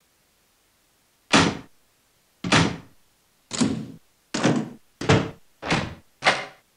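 A series of seven heavy thuds, each dying away over about half a second, coming faster and faster.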